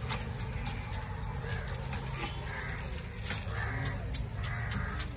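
Crows cawing several times, about once a second, over steady background noise, with a clear plastic bag crinkling and clicking as it is handled.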